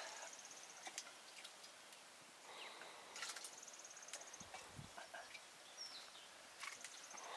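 Faint outdoor ambience: an insect gives short, rapid trills about every three and a half seconds, with a brief bird chirp and a few soft clicks and low thuds.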